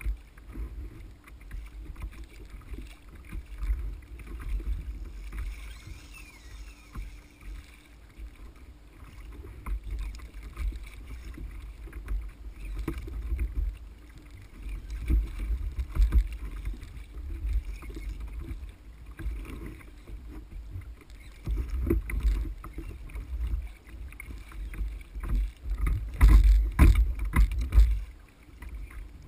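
Water slapping and sloshing against an ocean kayak's hull, with wind buffeting the microphone in an uneven low rumble. A cluster of sharp knocks and thumps near the end is the loudest part.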